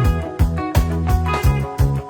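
Music with a steady beat, about three beats a second, over a sustained bass line and pitched melodic notes.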